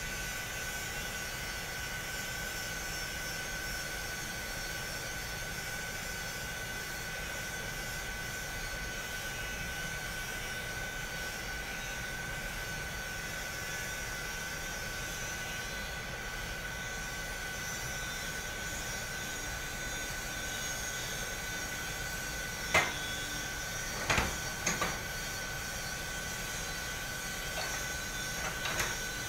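Steady machinery drone of an industrial boiler plant with a constant high whine. A sharp knock about three-quarters of the way through, two more soon after, and a few lighter knocks near the end.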